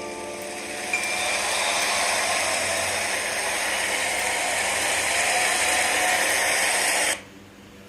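A steady, noisy mechanical whir with a click about a second in, cutting off suddenly about seven seconds in.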